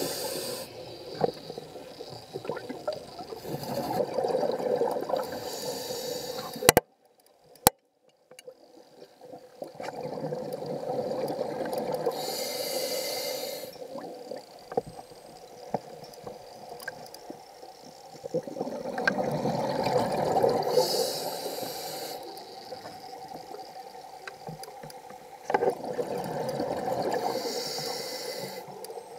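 Scuba diver breathing through a regulator underwater: a slow cycle of rushing exhaled bubbles about every seven seconds, each with a short high hiss. About seven seconds in, two sharp clicks with a second of near silence between them.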